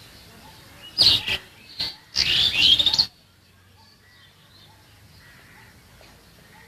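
A bird calling loudly in two bursts about a second apart, with a short call between them. Other birds chirp faintly in the background.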